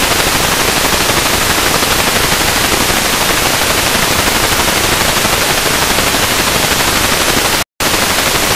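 Analog TV set hissing with loud static from a channel whose analog transmitter has been switched off, leaving only noise. The hiss cuts out for a split second near the end.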